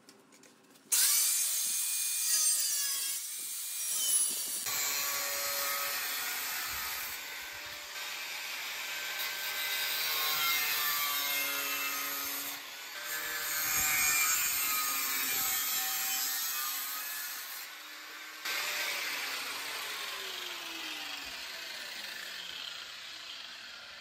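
Cutoff wheel spinning up and grinding through a sheet-steel pedal support bracket held in a vise, cutting a notch in several passes with brief pauses.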